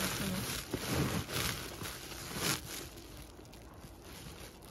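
Woven plastic sack rustling and crinkling as soil and manure are shaken out of it into a tyre planter, in several short rustles about a second apart.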